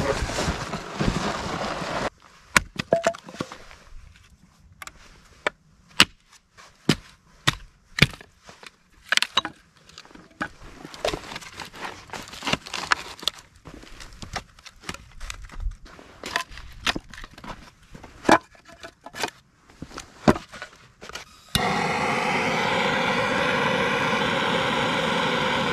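Split firewood pieces knocking and clacking against each other and the rocks as they are stacked in a stone fire pit, a sharp knock every second or so. About 21 seconds in, a handheld torch lighter starts a steady loud hiss as its flame is held to the wood to light the fire.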